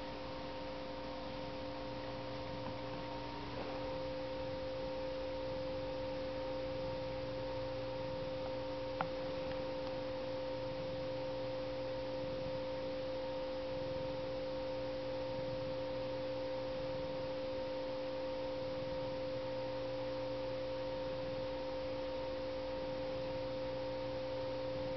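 A steady pitched hum made of several pure tones, with a stronger middle tone coming in about three and a half seconds in and holding steady. There is one faint click about nine seconds in.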